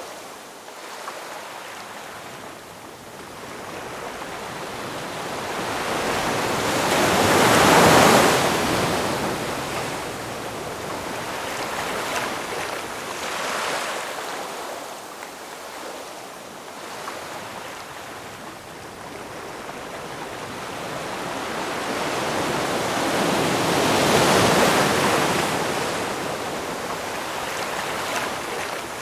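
Ocean surf: waves swell and break in slow surges of rushing water. The two biggest crash about eight seconds in and again some sixteen seconds later, with smaller washes between them.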